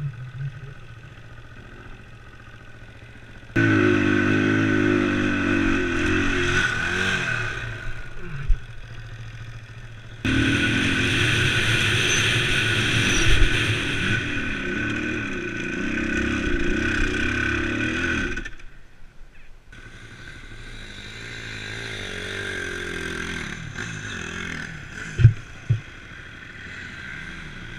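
KTM LC4 single-cylinder four-stroke enduro motorcycle being ridden off-road: the engine runs low at first, then is opened up hard about four seconds in and again around ten seconds in, pulling up a steep sandy climb. It eases off briefly about two-thirds through, then runs at moderate revs, with two sharp knocks near the end.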